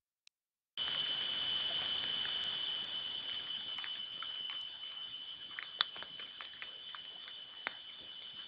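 Wildlife-webcam microphone audio: a steady high whine over hiss, with scattered small clicks and snaps throughout. The audio drops out for most of the first second.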